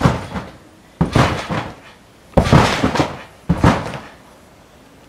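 Trampoline mat thumping under a jumper's landings: four heavy bounces about a second apart, each a sudden thump that fades quickly.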